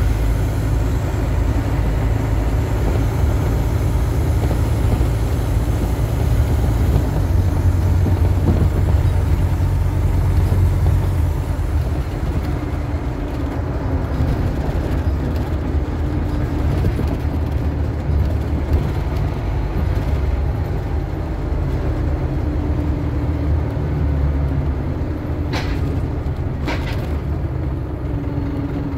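Scania Omnicity single-deck bus on the move, heard from inside the saloon: a steady low engine and road rumble, a little louder for a few seconds about a quarter of the way in. Two short sharp sounds near the end.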